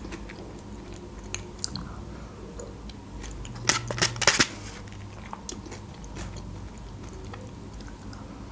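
A spoon scraping and clicking in a plastic dessert cup, with a cluster of several sharp clicks a little before halfway, between soft chewing and mouth sounds of eating a creamy dessert.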